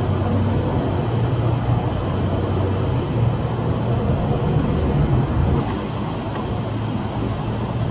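Patrol car running, heard from inside the cabin: a steady low engine and road hum with no distinct events.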